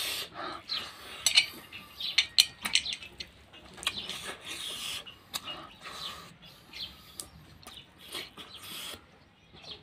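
Close-up mukbang eating sounds: chewing and lip smacking on a mouthful of snail curry and rice, with many sharp clicks and smacks. Fingers work the rice against an aluminium bowl.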